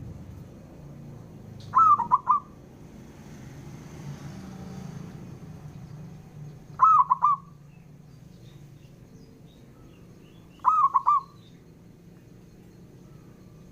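Zebra dove (perkutut) singing: three short, clipped phrases of quick cooing notes, each about half a second long and a few seconds apart.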